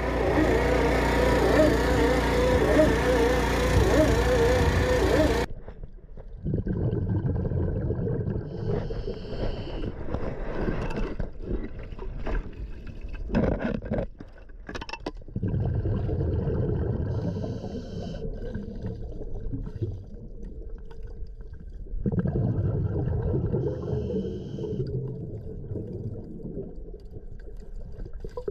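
For about five seconds a diesel-driven Salarollpump is running steadily while its suction hose draws from the water. Then the sound is heard underwater: muffled, uneven rumbling, gurgling and knocks as the suction nozzle dredges up bottom sediment, with a high whine that comes and goes three times.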